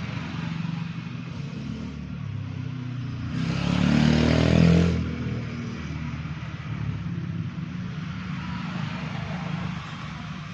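A motor vehicle's engine running steadily, with a louder surge about three and a half seconds in that fades again after about a second and a half.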